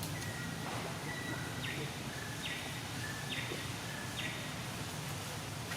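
A bird calling with sustained whistled notes that switch back and forth between a lower and a higher pitch, about four times in a row, over a steady low rumble of background noise.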